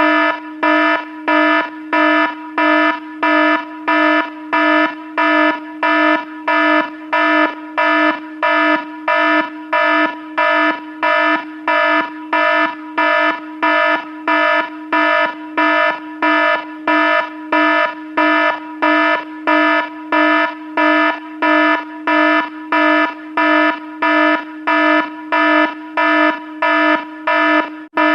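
Warning alarm beeping over and over: one harsh tone at a fixed pitch, pulsing on and off evenly a little under twice a second.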